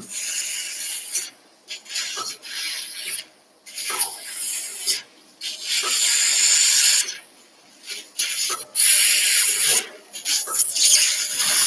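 Coblation wand with built-in suction working on a dog's soft palate during airway surgery: a hissing, sucking sound that starts and stops in bursts of about a second, as fluid and vaporised tissue are drawn off the palate.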